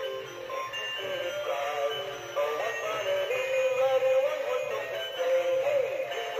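Battery-operated Dancing Santa figure playing its built-in Christmas song as it dances: a melody with an electronic singing voice over a backing track.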